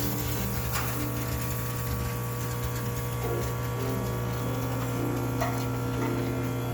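High-pressure steam cleaner running: a steady low machine hum with an even hiss of steam. Soft background music with slow held notes plays underneath.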